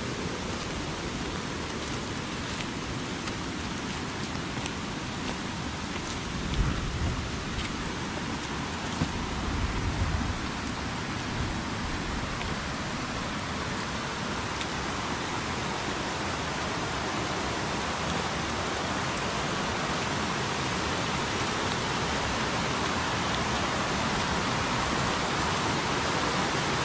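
Steady heavy rain together with rushing floodwater in a swollen creek, the rush of water growing slowly louder toward the end. A few brief low thumps come about a quarter of the way in and again a few seconds later.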